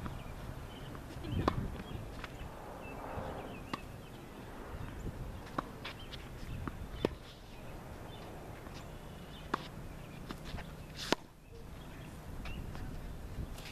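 Tennis balls struck back and forth with rackets in a rally: sharp pocks every second or two, some close and some distant, with shuffling footsteps on the court between them.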